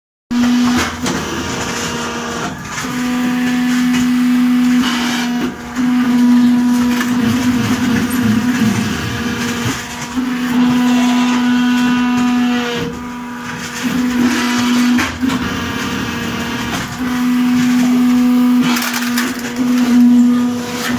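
Fly ash brick-making press running: a loud steady machine hum that cuts in for a second or two and stops again, over and over as the press cycles, with rattling and clatter in between.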